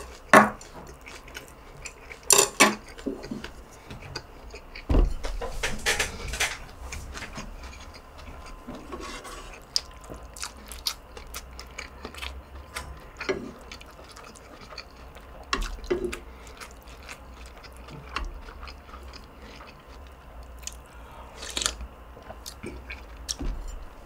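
Close-up eating sounds: chewing on rice and kimchi stew, broken by sharp clicks and clinks of wooden chopsticks and a spoon against a bowl and the stew pot, with a louder clatter about five seconds in.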